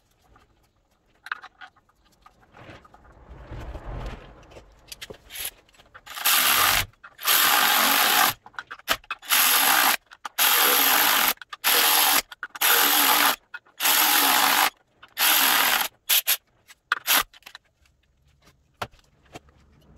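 Power driver with a T60 bit on an extension running in about eight short bursts, spinning the new flywheel bolts in before they are torqued. Light metallic clicks and knocks come first, as the bolts are started by hand.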